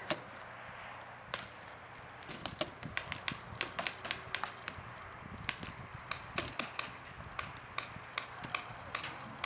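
Paintball markers firing in irregular sharp pops. The pops are sparse at first and come several a second from about two seconds in.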